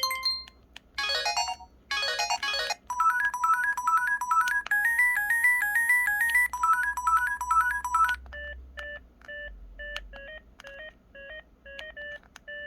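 Pantech SKY IM-S480 mobile phone playing its built-in electronic alert tones from the speaker, previewed one after another: a short chime and two quick runs of notes, then a fast electronic melody lasting about five seconds, then a pattern of short repeating beeps about twice a second.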